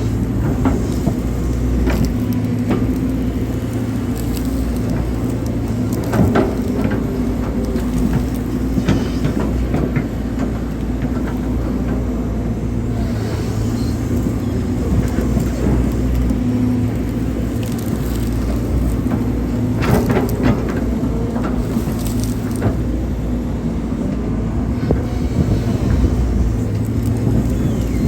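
Hydraulic excavator's diesel engine running steadily under digging load, with a few sharp knocks from the working machine.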